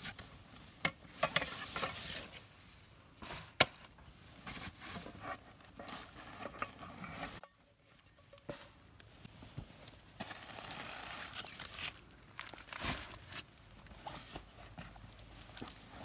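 Hands rummaging through a packed backpack: irregular rustling and crinkling of the bag's fabric and the things inside it, with a few sharp knocks, the loudest about three and a half seconds in.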